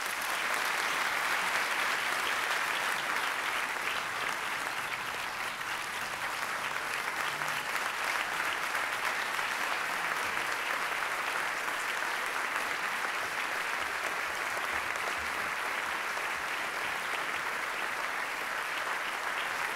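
A large audience applauding steadily, sustained throughout with no letup.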